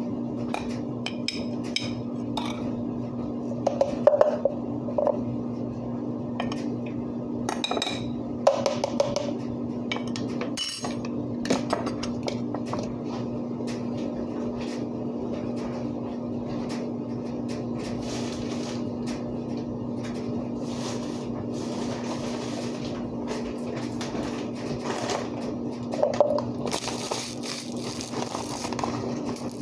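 A few light clinks of dishes or utensils, about 4, 8 and 26 seconds in, over a steady low hum.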